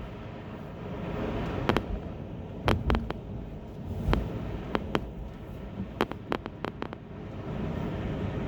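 Steady tyre and road noise from a Honda e electric car driving on a snowy road, heard inside the cabin, with a dozen or so sharp ticks and clicks at irregular moments.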